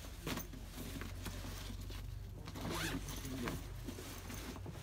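Zipper on a black The North Face backpack being pulled open in a few short strokes, with the bag's fabric rustling as it is handled.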